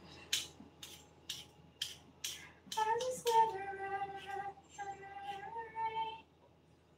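A knife chopping on a cutting board in short, sharp strokes about twice a second. About three seconds in, a voice sings a few held notes in a high register.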